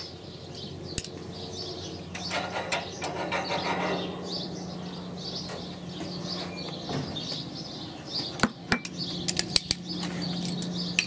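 Birds chirping in the background over a low steady hum, with a click about a second in and a quick run of clicks and knocks near the end as tongs and a small bowl are set down on the table.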